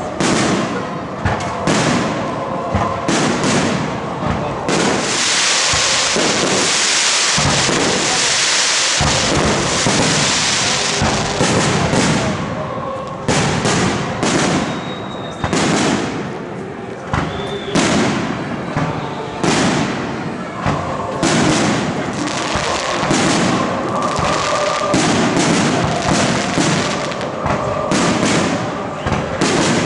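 Fireworks display: aerial shells bursting one after another in a rapid series of bangs, with a thick stretch of crackle from about five to eleven seconds in and brief whistles around fifteen seconds in.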